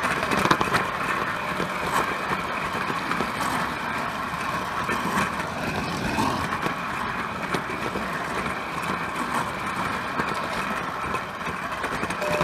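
Prewar Lionel electric toy train running on tinplate track, heard from on board: a steady whirring hum from the motor and gears over a running rattle of wheels on the rails, with scattered clicks.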